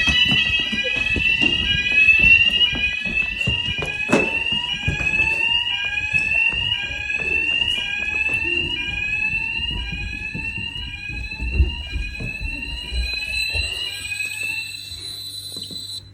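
Hotel fire alarm sounders going off during a fire alarm test, several electronic sounders out of step, each repeating a rising sweep tone over a steady high tone. The alarm fades and cuts off at the end.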